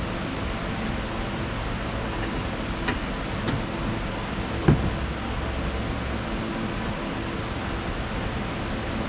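Steady background hum and hiss, with a few faint clicks and one sharper knock about halfway through, from a wrench working on the nuts of a Skoda Fabia Mk1's anti-roll bar link.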